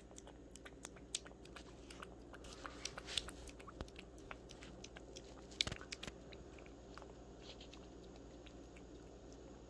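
Cat eating broth-based wet food from a small plastic cup: faint, irregular lapping and chewing clicks, busier in the first half.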